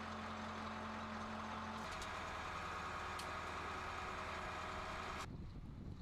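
Steady hum of a motor vehicle's engine, which changes slightly about two seconds in and then cuts off abruptly, leaving low wind rumble on the microphone.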